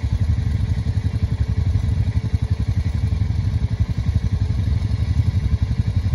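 ATV engine idling: a steady low rumble with a fast flutter.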